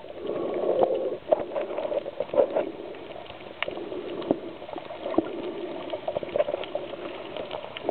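Underwater bubbling with a steady gurgling hiss, dotted throughout with many short sharp clicks and crackles.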